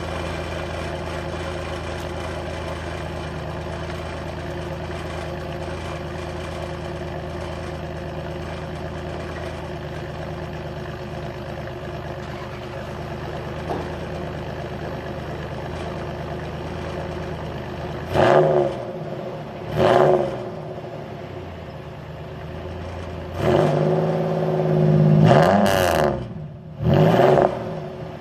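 2000 Pontiac Firebird's 3.8L V6 idling steadily, then revved in four quick throttle blips in the last ten seconds, the third held longest.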